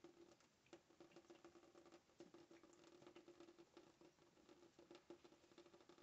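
Faint thin stream of tap water pattering into a stainless steel sink, with many small irregular ticks and splashes as a cat paws at the falling water.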